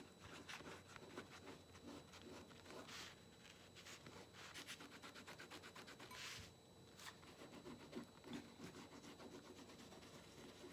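Faint fingertips rubbing wet paper in quick repeated scratchy strokes, with a couple of longer strokes, as the softened paper backing is rubbed away from a photocopy toner transfer.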